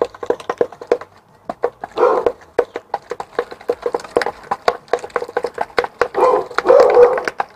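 Spoon beating a wet salmon-cake mixture with egg in a stainless steel mixing bowl: a quick run of clinks against the metal, about four to five a second, with a couple of longer, louder scraping stretches about two seconds in and near the end.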